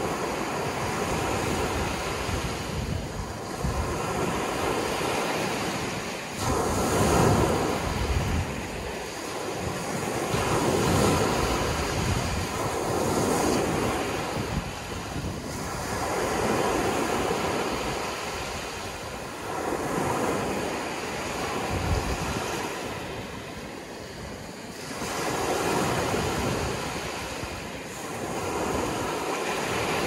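Ocean surf: waves breaking and washing in, a steady rush of water that swells and fades every few seconds.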